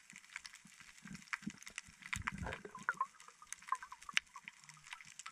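Underwater reef ambience picked up by a camera below the surface: faint scattered sharp clicks and crackles, with a brief cluster of low sounds a little over two seconds in and a short low tone near the end.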